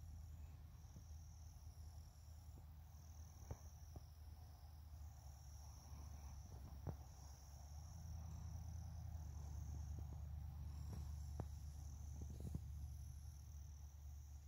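Faint chorus of insects trilling in a high, steady band that comes and goes in stretches of a second or so, over a low rumble on the microphone. A few soft clicks, several seconds apart, come through from handling.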